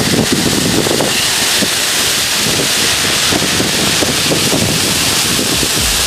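A waterfall about 15 metres high pouring into a plunge pool: a steady, loud rush of falling water. Low, uneven wind rumble on the microphone runs underneath.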